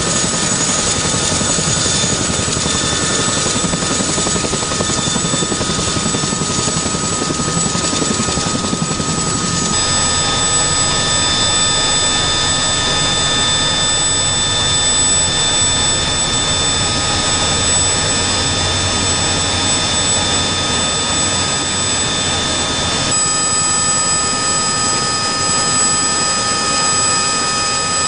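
CH-47F Chinook tandem-rotor helicopter's twin turboshaft engines and rotors running on the ground: a loud, steady rush of rotor and engine noise with several steady high whining tones. About ten seconds in the sound changes to that heard inside the cabin, where the whining tones stand out more.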